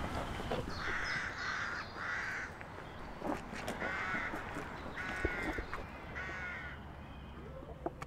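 Crows cawing: about five caws spread over several seconds, roughly a second apart with a short gap in the middle.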